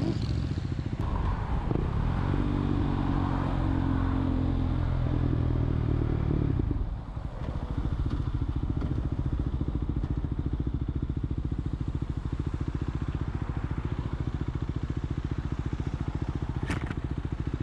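KTM Duke 390 single-cylinder engine running under throttle with a steady drone. About seven seconds in the throttle closes and it settles to a lower, evenly pulsing beat. A single click comes near the end.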